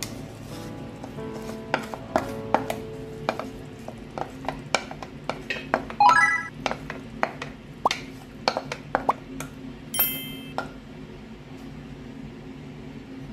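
Background music, over which a kitchen utensil clicks and knocks against a bowl and a frying pan while cake batter is scraped out and spread. There are ringing clinks about six seconds in and again about ten seconds in.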